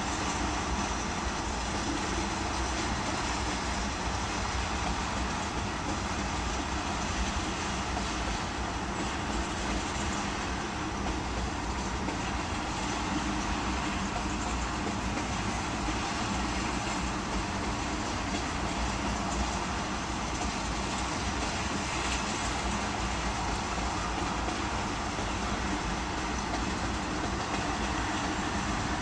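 Freight train of loaded ethanol tank cars rolling steadily past: a continuous rumble of wheels on rail.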